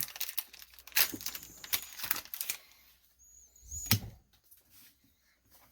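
Trading cards and foil booster-pack wrappers being handled: a quick run of light clicks and crinkles over the first couple of seconds, then one sharper tap about four seconds in.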